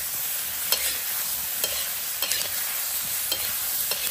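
Green peppers and small fried fish sizzling in a hot wok, with a metal spatula scraping and clinking against the pan in short strokes every half second to a second as the food is stir-fried.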